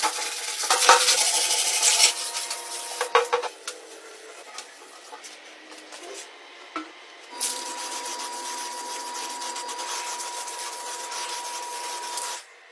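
Hand sanding block rubbed back and forth over body filler on a steel motorcycle fuel tank, densest in the first two seconds, then a few shorter strokes. From about seven seconds in, a steady hiss with a thin whistle takes over and stops shortly before the end.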